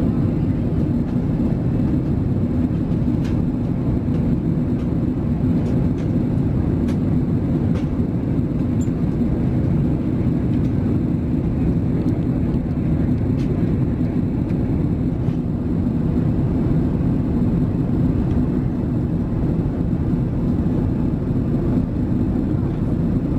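Steady low drone of an Airbus A380 heard from inside the cabin in flight, from its Rolls-Royce Trent 900 engines and the rush of air past the fuselage. A few faint clicks sound here and there.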